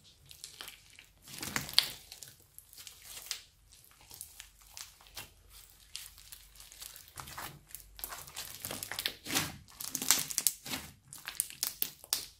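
Hands pressing and squeezing a large slab of slime packed with foam beads, giving irregular crackling and popping. The crackles come thickest about two seconds in and again from about seven to eleven seconds.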